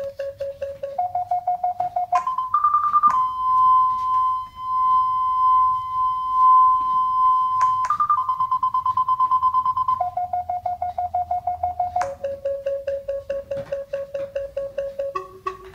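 Parking-sensor warning beeps from the FenSens app on a smartphone speaker. The beeps rise in pitch as the obstacle gets closer and become one continuous tone for about five seconds, the closest-range alarm. They then step back down to lower, separate beeps as the obstacle moves away.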